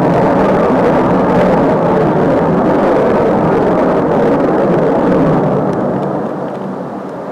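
F-16 fighter jet's single turbofan engine, a steady rushing roar that fades from about five and a half seconds in as the jet moves away.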